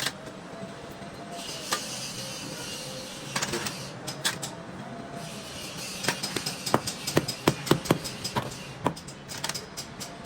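Metal tools and parts clicking and clinking during repair work at a workbench, with two stretches of high hissing.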